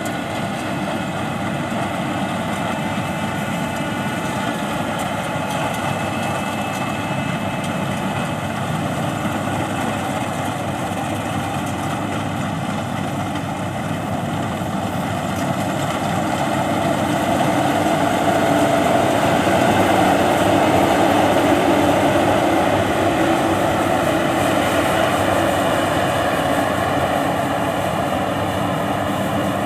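Yanmar YH850 rice combine harvester running steadily in the field, a continuous engine drone that grows louder from about halfway through, peaks, then eases slightly near the end.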